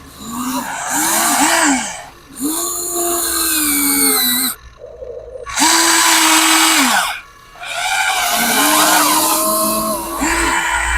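Electric motors of a Huina 1594 RC excavator whining in repeated runs. Each run rises in pitch as the motor spins up, holds, then falls away, with short gaps between runs; the longest gap, about a second, falls just before the middle.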